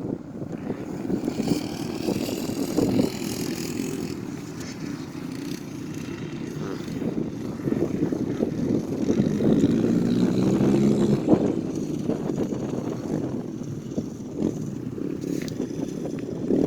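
Dirt bike engine running and revving as it rides, its pitch rising and falling, with a climbing rev around the middle.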